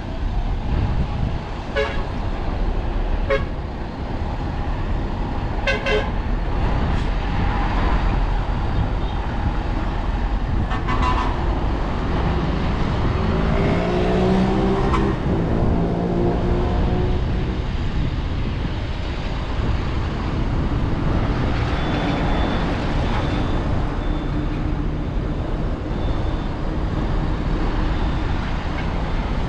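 Heavy diesel earthmoving machinery, a bulldozer and dump trucks, running steadily, with a few sharp clanks in the first several seconds. A wavering pitched honk sounds for a few seconds about midway, and a faint high beeping repeats in the last seconds.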